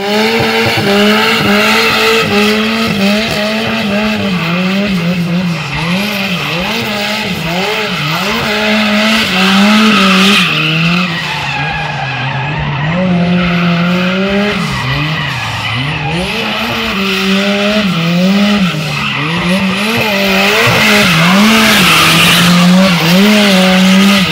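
Chevrolet Chevette drifting: its engine revs rise and fall over and over while the spinning rear tyres screech and skid on the asphalt, the screech loudest about ten seconds in and again near the end.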